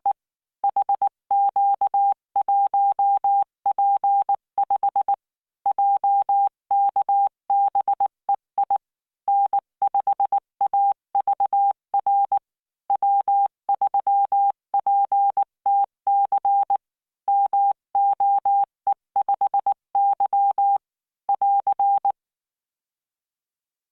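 Computer-generated Morse code at 19 words per minute: a single steady beep tone keyed into dots and dashes, grouped into characters with short gaps between them. The sending stops near the end.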